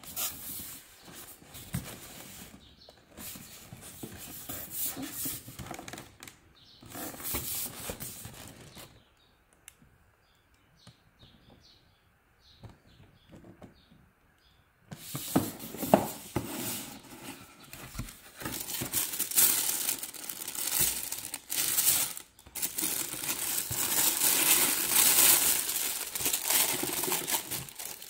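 A cardboard shoebox being handled and opened, with paper rustling in fits, then a quiet stretch of several seconds. From about halfway, tissue paper crinkles and rustles loudly as it is folded back from the shoes.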